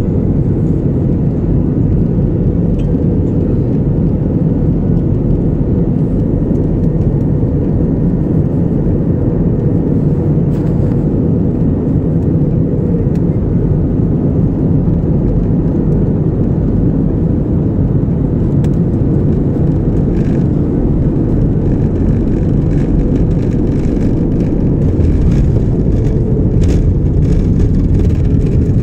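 Airliner cabin noise beside the wing: the jet engines and rushing air make a steady low rumble during final approach. In the last few seconds it grows a little louder, with scattered knocks, as the plane reaches the wet runway.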